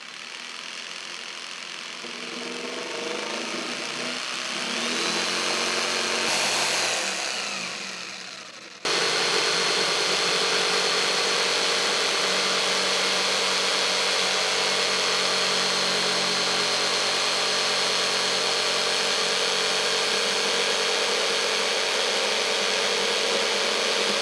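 Corded jigsaw cutting through plywood. Its motor whine rises in pitch about five seconds in, then about nine seconds in the sound jumps abruptly louder and holds steady as the blade keeps cutting.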